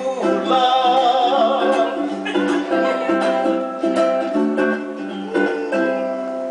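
Ukulele-led Hawaiian song playing its instrumental ending after the last sung line: strummed chords under a wavering melody line.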